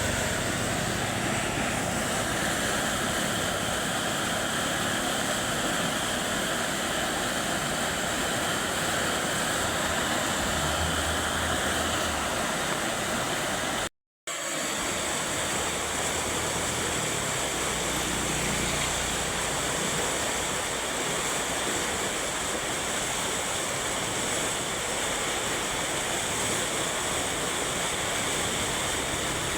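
Steady rushing of a swollen river in flood. The sound cuts out for a moment about halfway through.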